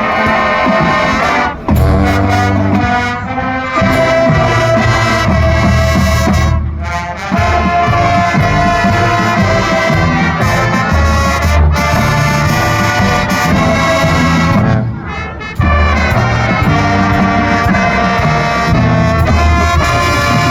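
Marching band playing a Christmas medley, its brass section carrying the tune over deep low brass and drums, in phrases with short breaks between them.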